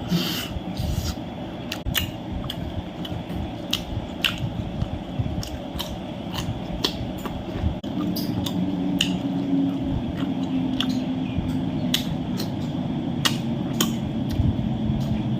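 A person eating: chewing and biting with frequent sharp clicks and crunches. A low steady hum comes in about halfway.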